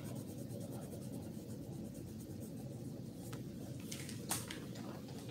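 Pen colouring on paper, a faint light scratching over a steady low room hum, with a few soft taps or clicks about three to four seconds in.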